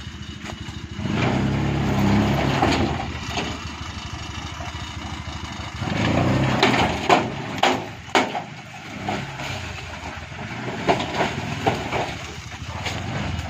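Petrol engine of a three-wheeled cargo vehicle running, revving up about a second in and again around six seconds in. Several sharp knocks stand out in the later part.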